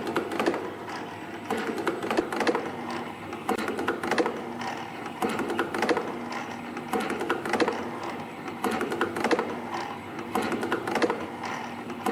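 CT-series CNC micro spring coiling machine running, forming tiny ballpoint-pen tip springs: rapid mechanical clicking and clattering in repeating bursts about every second and a half, over a faint steady hum.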